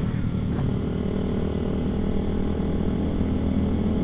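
A Honda Sonic 150R motorcycle's single-cylinder engine running steadily while riding, holding an even engine speed.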